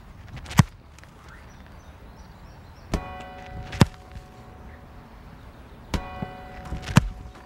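Football kicks off a tee, three sharp thuds of boot on ball. Twice, a couple of seconds after a kick, a ringing metallic clang sounds for about a second.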